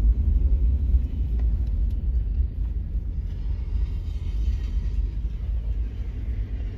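A loud, steady low rumble that eases off slightly toward the end.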